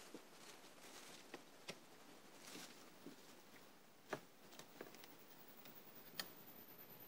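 Near silence, broken by a few faint sharp ticks and clicks, the clearest about two, four and six seconds in, with a very high, faint tone sliding down near the end.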